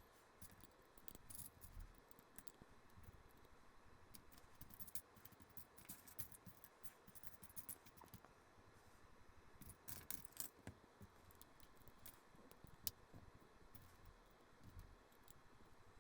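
Faint clicking and rattling of small plastic LEGO pieces being handled and pressed together, with a cluster of clicks about ten seconds in and one sharper click near thirteen seconds.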